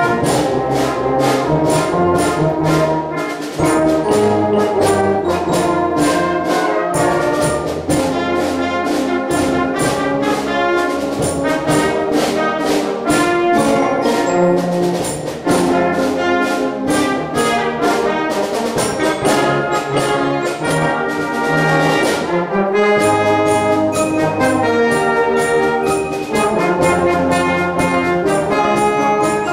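Elementary school brass band playing: trumpets, trombones, tuba and woodwinds carry the tune over a steady percussion beat, with a brief break in the texture about three-quarters of the way through before the band comes back in.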